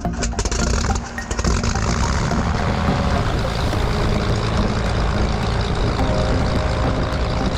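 Steady noise of a twin-engine Cessna 310's piston engines and propellers running, heard inside the cabin.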